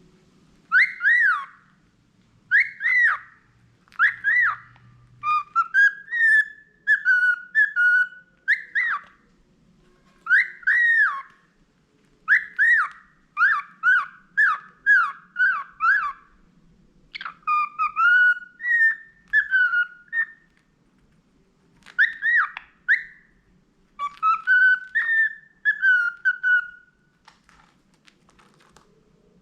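Pet budgerigar whistling a learned tune: phrases of clear, pitched whistled notes that glide up and down, repeated with short pauses between phrases, stopping near the end.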